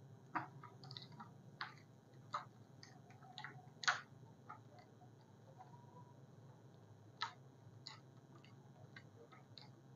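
Whiteboard being wiped clean by hand: faint, irregular squeaks and ticks of the hand rubbing on the board, the loudest about four seconds in.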